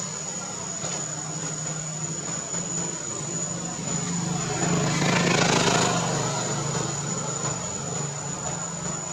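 A motor vehicle's engine hum runs steadily and swells as it passes about halfway through, then fades. A constant high-pitched whine sits over it.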